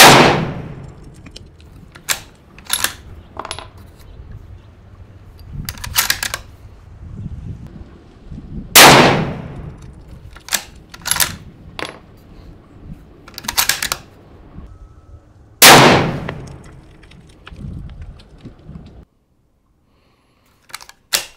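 Three rifle shots from a 6.5 Creedmoor bolt-action rifle, about seven seconds apart, each with a ringing echo that dies away over a second or so. Between the shots come sharp metallic clicks of the bolt being worked. The sound cuts out suddenly near the end, then a few more clicks.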